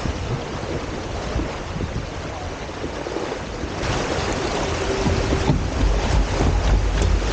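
Wind buffeting the microphone and water rushing and spraying past the hulls of a Hobie Tiger F18 catamaran under sail. It gets louder from about four seconds in, with heavy wind rumble near the end.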